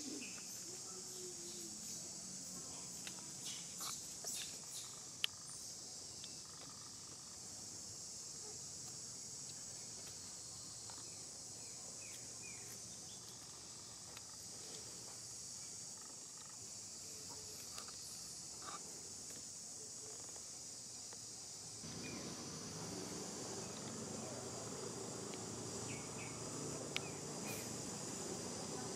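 A steady, high-pitched insect chorus, with scattered faint clicks over it. About 22 seconds in, a louder low background noise comes up under it.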